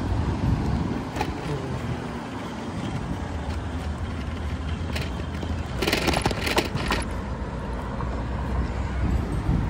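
Ride noise from an e-bike moving through city streets: a steady low wind rumble on the microphone with traffic around, and a short run of clattering about six seconds in.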